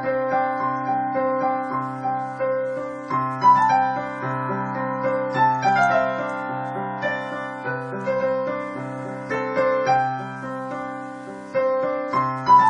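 Dynatone DPR-3160 digital piano playing a slow, dreamy solo piece: held low chords under a melody of separate struck notes.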